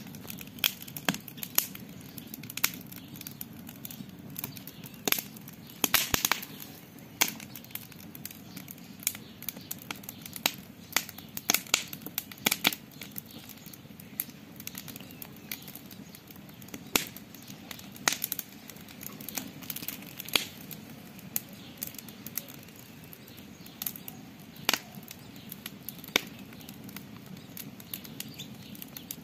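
Campfire crackling: irregular sharp pops and snaps of burning wood, several a second, with a few louder pops.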